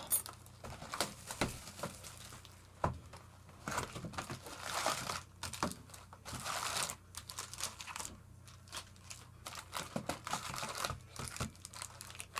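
Wrapping on a sealed pack of baseball trading cards crinkling and tearing as it is opened by hand, in irregular rustles with a few sharp clicks and taps.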